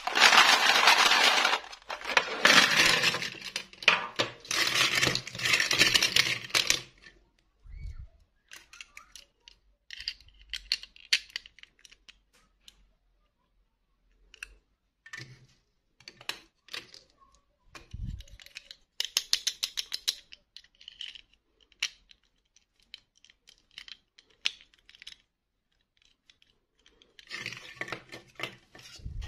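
Small plastic Disney princess dolls and their clip-on plastic dresses clattering as they are shaken and rummaged in a tray for about the first seven seconds, then scattered light plastic clicks and taps as single dolls and dresses are picked up and handled.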